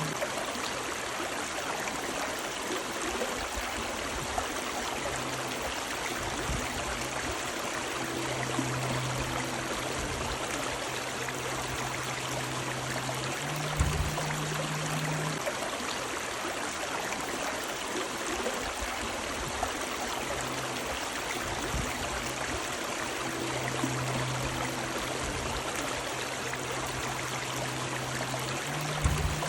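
River water rushing and splashing steadily. A faint low hum comes and goes underneath, and a soft thump sounds twice, once in the middle and once near the end.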